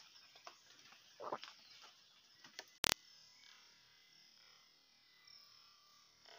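Near-quiet background with a few faint ticks and one short, sharp click about three seconds in.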